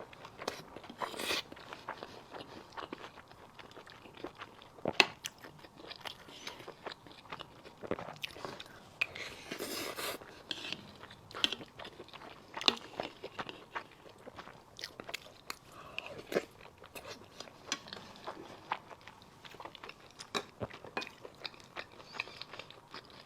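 A person eating braised pork rice close to the microphone: chewing and biting, with many small sharp mouth clicks at an uneven pace.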